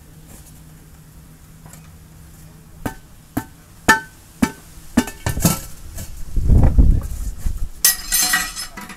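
Steel tyre lever striking and scraping a steel wheel rim as a tyre is prised off by hand: a run of ringing metal clinks about half a second apart, then a heavy thud as the rim comes free of the tyre. Near the end, steel tools clatter down onto a metal bench.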